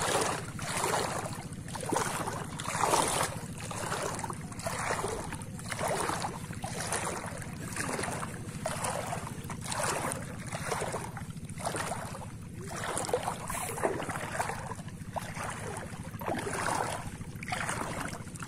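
Footsteps wading through shallow sea water, a splashing slosh about once a second, over a steady low hum.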